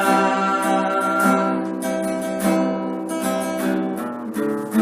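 Song accompanied by acoustic guitar: a male voice holds the last word of a sung line in the first second or so, then the guitar strums on alone between vocal lines.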